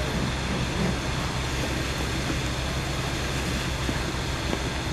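Steady low engine rumble under an even, constant hiss.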